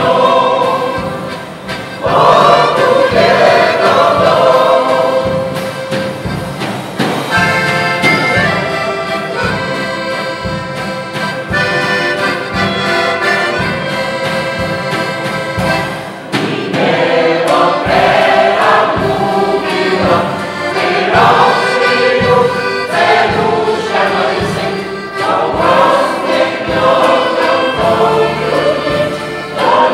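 Mixed choir of older voices singing together with accordion accompaniment, with a quieter passage in the middle where the singing eases off.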